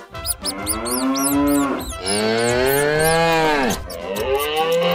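Cow mooing: two long moos, the second rising and then falling in pitch, and a third beginning near the end. Quick high chirps run over the first two moos.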